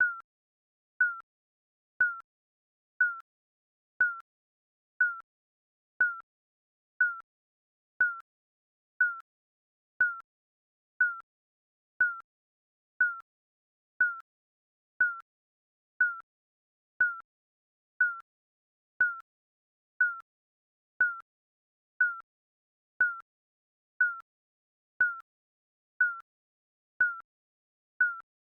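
Digital countdown timer beeping: one short electronic beep every second, evenly spaced and all at the same pitch.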